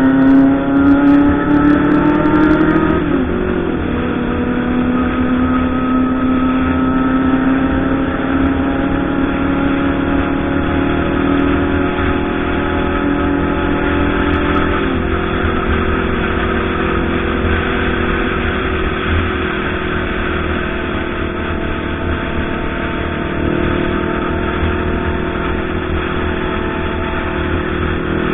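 Kawasaki Ninja ZX-25R's 250cc inline-four engine running on the road. Its pitch rises over the first few seconds and drops sharply about three seconds in, then holds fairly steady at cruising speed with small shifts in pitch.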